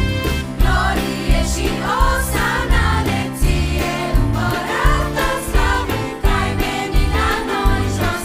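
Romanian Christmas carol sung by a children's choir, backed by piano, drums, organ, guitar and bass with a steady beat; the voices come in about half a second in.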